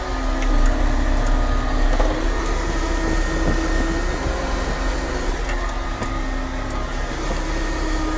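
CAT tracked skid steer's diesel engine running steadily, with whining tones that slide up and down in pitch over the low rumble.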